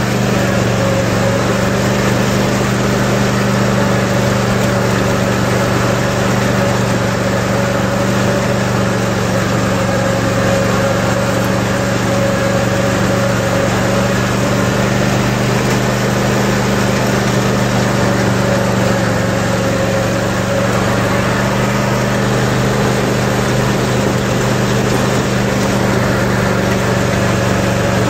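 Cub Cadet RZT zero-turn riding mower's engine running steadily at an even speed while the mower drives across the lawn.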